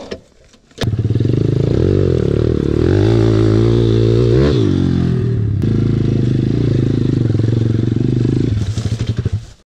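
SSR 170TX pit bike engine comes in suddenly about a second in, revs up to a peak about halfway through, drops back and runs steadily, then cuts off just before the end.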